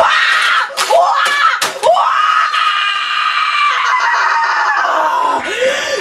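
A boy screaming in a rage: short yells mixed with a few sharp knocks as a keyboard is slammed on the desk, then one long scream of about three seconds.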